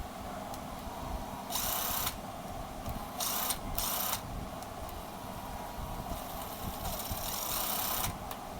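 Second-hand cordless drill being test-run by trigger: three short bursts of the motor spinning, then a longer run of about two seconds near the end.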